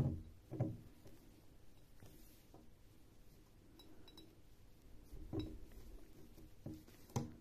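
Faint handling of cotton macramé cord being knotted around a glass jar, with a few soft knocks and clinks as the glass jar is bumped: two near the start and three more about five to seven seconds in.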